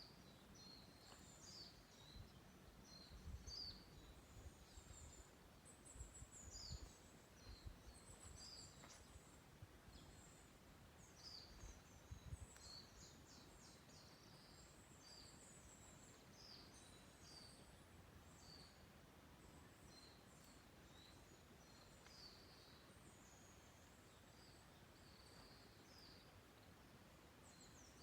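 Faint songs and calls of wild forest birds, many short high-pitched chirps and trills from several birds overlapping throughout. Bursts of low rumble come and go through the first half.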